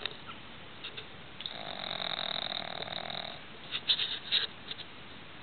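Sleeping pug snoring loudly: one long snore lasting about two seconds, starting a second and a half in. A quick run of short, sharp noises follows, the loudest moment.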